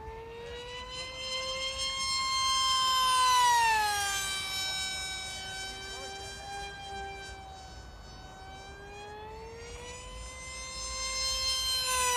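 Multiplex FunJet RC plane's electric motor and pusher propeller whining on two high-speed passes. Each time the pitch climbs as the plane approaches and then drops sharply as it goes by, at its loudest about three and a half seconds in and again near the end.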